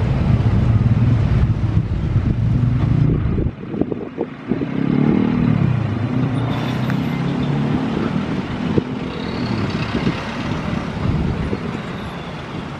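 Motor scooters and motorcycles running as a stream of riders passes close by. After a sudden cut about three and a half seconds in, road traffic goes on, with engines passing and idling.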